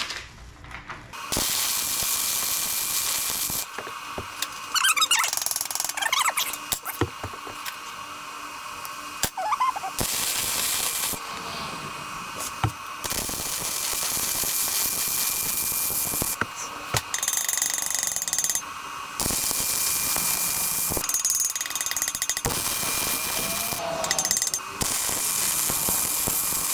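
MIG welder arc crackling and hissing on steel plate in a string of welds a few seconds each, the arc stopping and restarting several times.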